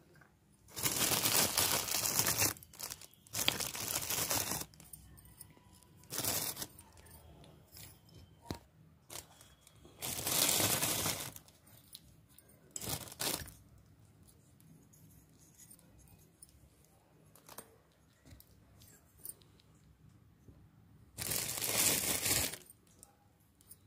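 Plastic packaging rustling and crinkling in about six bursts of up to two seconds each, with small light clicks in between.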